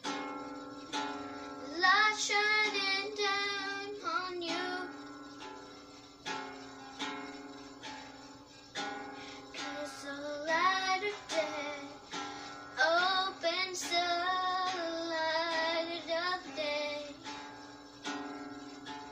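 A girl singing while strumming a guitar. She sings in phrases with gaps where only the guitar rings, and the strums fall about once a second.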